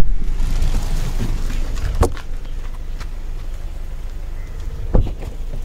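A Hyundai Creta's door being opened and shut as someone gets out and moves to the back, with sharp knocks about two seconds in and again near the end, over a low rumble of handling and wind noise on a handheld microphone.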